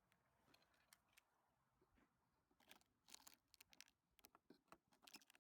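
Near silence, with faint scattered clicks and crackles that grow busier in the second half.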